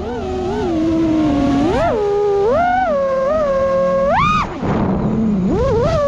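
FPV quadcopter's brushless motors whining, the pitch rising and falling with the throttle. It climbs steeply about four seconds in, drops off briefly, then rises again near the end.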